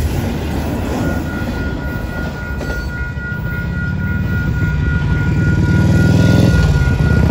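Double-stack intermodal freight cars rolling past, with a steady low rumble and a steady high ringing tone over it from about a second in. Near the end an engine rises in pitch as it speeds up.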